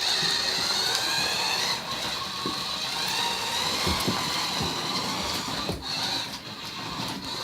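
Toy remote-control Lamborghini car's small electric motor whining as it drives, its pitch wavering up and down, with a few light knocks partway through.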